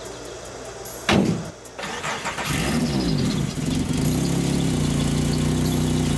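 Swapped-in 07K inline-five engine in a Porsche 944 starting up. A sudden loud burst comes about a second in, the engine note swings in pitch briefly, and then it settles into a steady idle.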